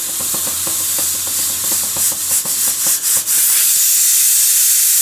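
Stovetop pressure cooker venting steam through its lid valve in a steady high hiss, the sign that it has reached working pressure and the valve has opened. There are scattered clicks in the first three seconds, and from about three seconds in the hiss is steady and louder.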